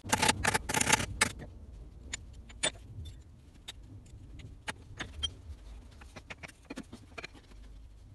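A hammer strikes the connecting-rod big end of a Ford Dorset engine in a quick run of about half a dozen sharp metal blows in the first second and a half. After that come scattered light metallic clicks and clinks as the rod cap and its bolts are handled.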